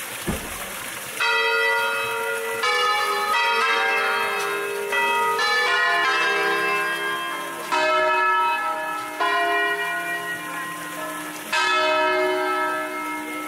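Church bells of a five-bell concerto in E-flat, swung full circle on wheels and rung by hand in traditional sequences. They strike one after another, roughly every one to two seconds, at different pitches, and each note rings on over the next.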